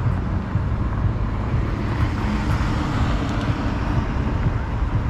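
Steady street traffic noise with low, fluttering wind rumble on the microphone of a moving rider. A passing vehicle's engine hum stands out faintly for a couple of seconds in the middle.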